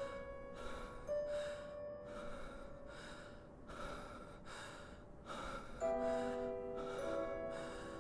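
Quick, heavy breathing, a breath about every two-thirds of a second, over soft background music with long held notes.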